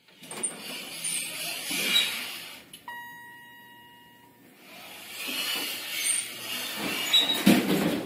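Elevator sound effect: a sliding, rumbling door-and-car noise, broken about three seconds in by a single chime that rings and fades over a second or so. The sliding noise then returns and ends in a few knocks near the end.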